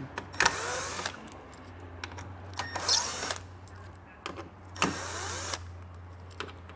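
Cordless drill with a T15 Torx bit spinning out plastic fascia fasteners in three short bursts, each under a second and about two seconds apart, its motor whine rising as each one runs up.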